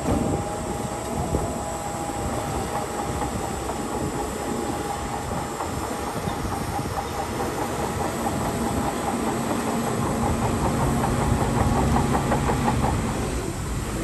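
Crawler bulldozer's diesel engine running with its steel tracks clanking; a quick, even clatter of the track links comes through in the middle, and the machine grows louder near the end.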